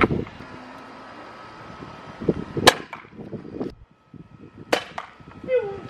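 NERF Rival Apollo XV-700 foam-ball blaster firing twice, two sharp snaps about two seconds apart, the first the louder.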